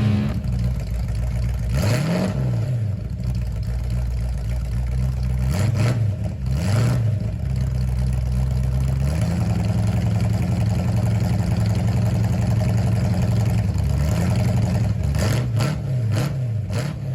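Car engine running at a steady idle, revved in short blips a few times: once about two seconds in, twice around six to seven seconds, and several quick blips near the end, each settling back to idle.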